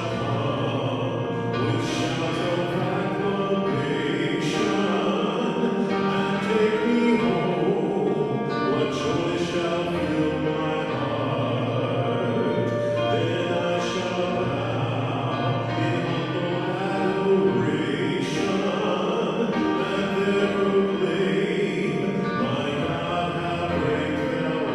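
Church music with singing: a sung vocal line over steady held accompaniment.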